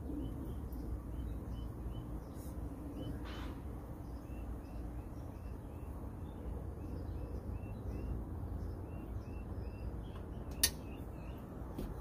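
Small birds chirping repeatedly over a steady low background rumble, with a single sharp click near the end.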